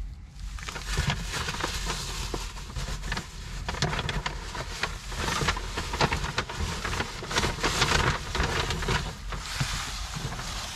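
Rustling and small knocks from a person shifting about in a car seat and reaching around, his jacket brushing against the seat, in uneven swells over a steady low hum.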